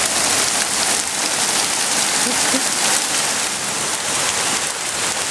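Heavy rain falling steadily, an even dense hiss of drops on the ground and surfaces.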